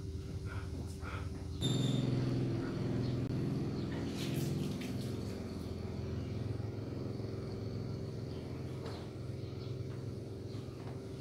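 A steady motor or engine hum that suddenly grows louder about two seconds in, with a brief high squeal, and then runs on evenly.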